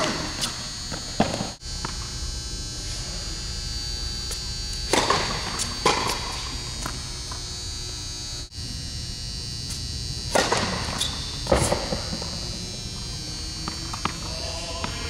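Tennis balls struck by rackets on an indoor court: sharp echoing pops in three pairs, each pair about a second apart, roughly every five seconds. A steady high electrical buzz runs underneath.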